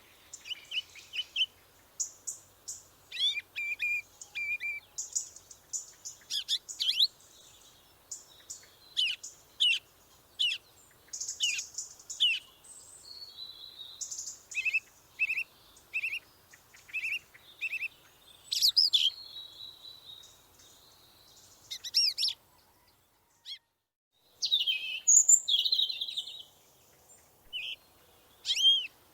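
Birds chirping and calling: many short, high, sharp notes and quick sweeping calls, some in rapid runs. They break off briefly about two-thirds of the way through, then start again louder.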